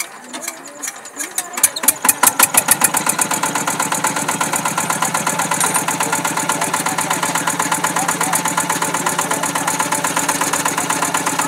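A walking tractor's single-cylinder diesel engine starting about two seconds in, firing loudly and unevenly at first, then settling into a steady, rapid chugging idle.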